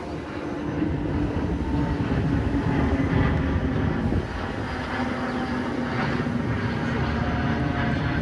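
Jet airliner passing low overhead: a steady rumble that builds to its loudest about three seconds in and eases off just after four.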